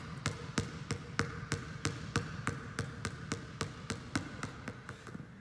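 Basketball dribbled low and fast with the left hand on a gym floor in a 'machine gun' dribbling drill: a quick, even run of bounces, about three to four a second, that stops near the end.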